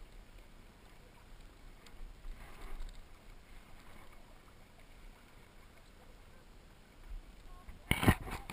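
Soft paddle strokes and water lapping around a stand-up paddleboard, with a loud short thump or splash near the end.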